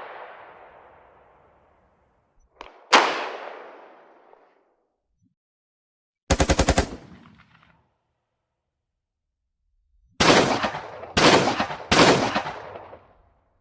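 Gunshot sound effects in a sequence: a single loud shot with a ringing tail about three seconds in, then a fast burst of automatic fire lasting under a second, then three separate shots about a second apart near the end.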